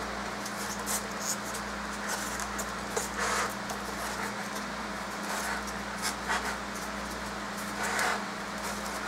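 Steady hum and airy hiss of an electric fan blowing on the bench, with brief scratchy rustles now and then as pieces of rigid foam insulation are handled and pushed into gaps in a foam board.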